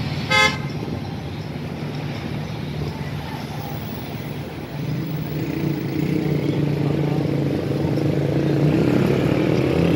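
City street traffic: cars and motorbikes running past at an intersection, with one short horn beep just after the start. From about halfway a vehicle engine grows louder, rising in pitch near the end as it pulls away.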